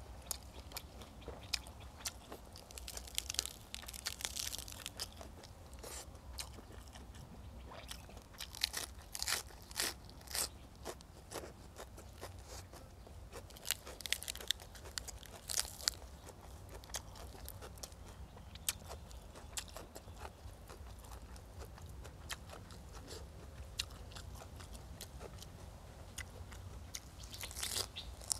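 A person chewing and biting into crunchy food close to the microphone while eating spicy stir-fried frogs with raw vegetables. Loud crunches come in clusters every few seconds, with quieter chewing between them.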